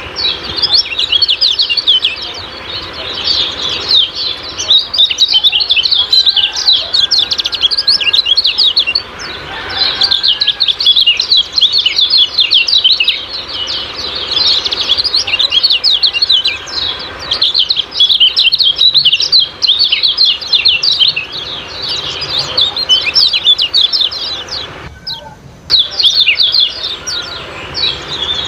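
Common iora (kecial kuning) giving fast, chattering 'ciak-ciak' calls: long unbroken runs of rapid high chirps, with a brief pause about 25 seconds in.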